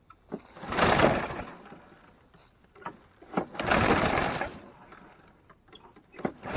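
Push mower's recoil starter yanked twice, about three seconds apart, each a short rasping whir of cord and engine turning over, with a third pull starting at the end. The engine does not catch.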